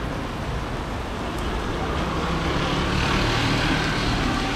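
City street traffic: a steady background of traffic noise, with a vehicle passing and growing louder about three seconds in.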